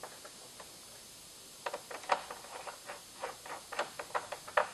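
Hand screwdriver turning M6 screws through a metal mounting bracket on the back of a flat-screen TV: a run of small, irregular metal clicks and ticks, several a second, starting about a second and a half in.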